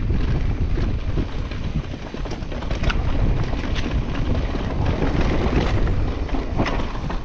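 Wind buffeting the microphone of a mountain biker's camera while riding, a steady low rumble with a few short clicks and rattles from the bike.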